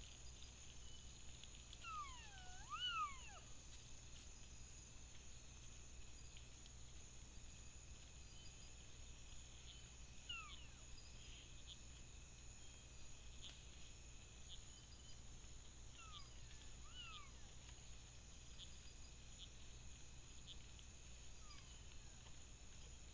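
Lowland tapirs calling with thin, high whistles that slide down in pitch: a longer wavering whistle about two seconds in, a short one near ten seconds, two more around sixteen to seventeen seconds and a faint one near the end. A steady chorus of night insects sounds throughout.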